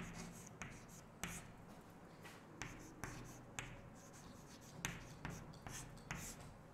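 Chalk writing on a chalkboard: a faint run of short, irregular taps and scratches as the chalk strikes and drags across the board, about two a second.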